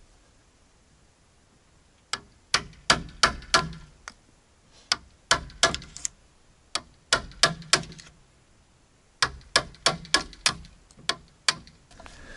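Hammer blows on timber, likely driving nails, in three runs of quick strikes about three a second, starting about two seconds in.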